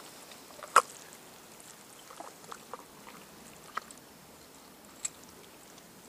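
Bare hands working inside an elk's body cavity, pulling the inner tenderloin free: soft handling noise with a few short, sharp sounds, the loudest about a second in.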